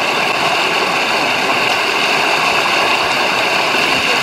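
Whitewater rapids rushing steadily, a loud, even wash of fast-flowing river water.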